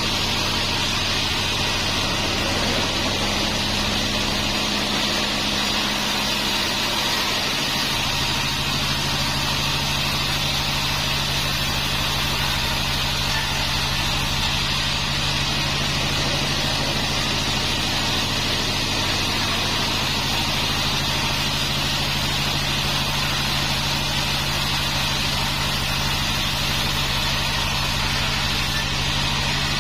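Bandsaw mill running steadily with an even machine hum and hiss. The engine's note changes about eight seconds in.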